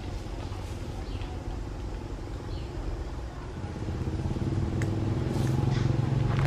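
A steady low engine hum, growing louder from a little past halfway, with a few short crackles near the end.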